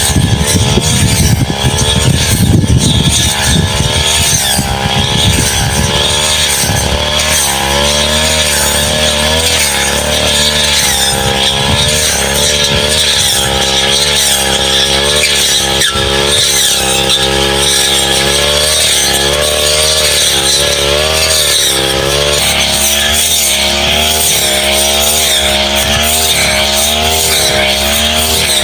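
Two-stroke brush cutter engine running under load, its pitch rising and falling again and again as the blade works through saplings. A rough, heavier clatter of cutting runs through the first several seconds.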